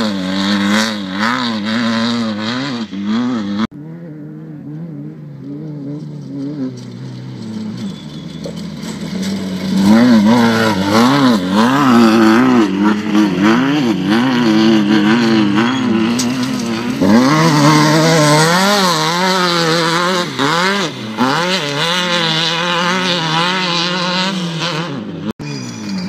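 Off-road desert race buggy engines at full throttle, their pitch rising and falling constantly as the drivers work the throttle. One car pulls away and fades early on, then another approaches from about 8 seconds in and runs loud and close.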